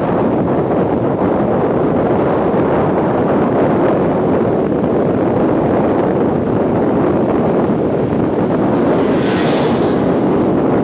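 Loud, steady wind rush over a camcorder microphone while filming from a moving vehicle on the road. A brief higher hiss rises about nine seconds in.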